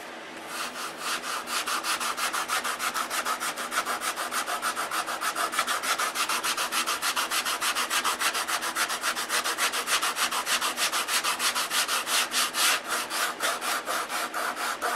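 Sandpaper rubbed by hand over a balsa wood block wingtip, shaping and blending it into the wing, in quick, even back-and-forth strokes that start about half a second in.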